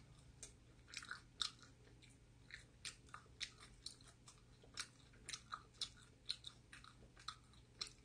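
Close-up mouth sounds of a person chewing a bite of pizza: a string of short, irregular clicks and smacks, a few each second.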